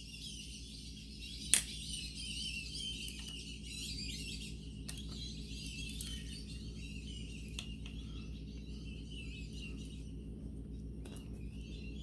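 Birds chirping steadily over a low hum, with a sharp click about one and a half seconds in and a few fainter clicks later from handling the clutch push rod and its washers.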